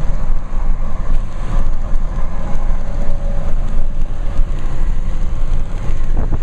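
Steady low rumble of highway road and wind noise from moving traffic.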